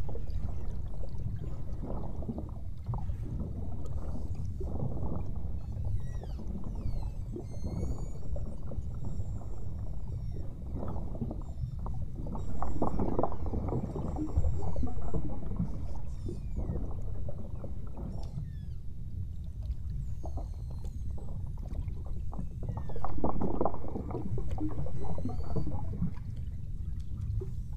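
Low, steady rumble of a small boat's motor and water against the hull, swelling louder twice for a few seconds, with faint high whistles and chirps over it.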